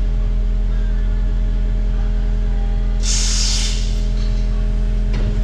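Kubota KX080 excavator's diesel engine running steadily with a low drone, with a short burst of hiss about three seconds in.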